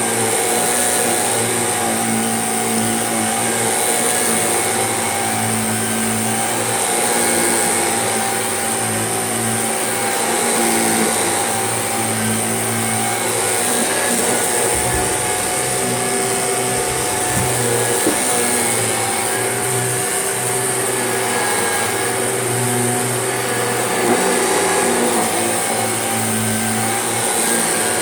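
Shark vacuum cleaner running steadily over carpet, a continuous motor hum with a high whine; the owner says it sounds a bit rough and could do with some TLC.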